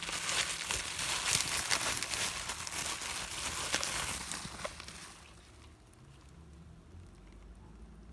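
Packaging crinkling and rustling as it is handled during unboxing, with many small crackles. It dies away about five seconds in, leaving a faint low hum.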